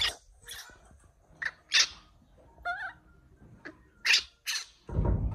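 Baby macaque giving a string of short, high-pitched squeaks and calls, about eight in all, one sliding in pitch near the middle. A low thump comes near the end.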